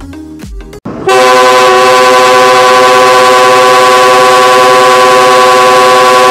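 Brief intro music, then about a second in a diesel locomotive's multi-tone air horn sounds: a loud chord of several notes held steadily.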